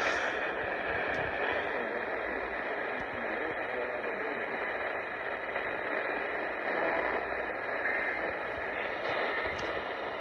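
Steady hiss of radio static from a receiver tuned to an AM station, with no clear programme audio coming through.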